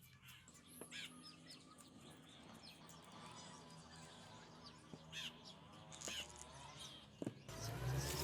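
Faint bird chirps and calls at irregular intervals, with one longer wavering call in the middle. Near the end a louder steady low hum with rustling noise starts abruptly.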